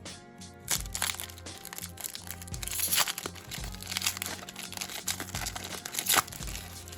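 Trading card pack wrapper being torn open and crinkled by hand, in a series of rustling bursts, the loudest about three seconds in and again about six seconds in, over background music.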